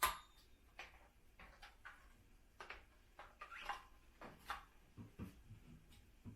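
Handling noise from the parts of a canister vacuum: a sharp click, then faint, irregular clicks, taps and a few soft knocks. The vacuum motor is not running.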